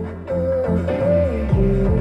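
Music playing from the car radio through the speakers, with a melody over a bass line, growing louder about a quarter second in: the replacement amplifier has restored the sound.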